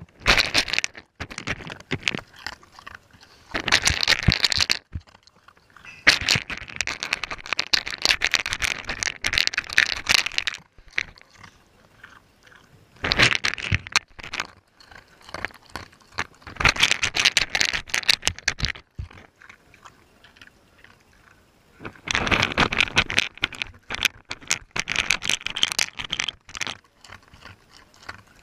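German Shepherd eating from a bowl right against a GoPro Hero3+ Black lying in it: bursts of dense crunching, clicking and scraping as teeth and food knock on the camera, each lasting one to four seconds with quiet pauses between.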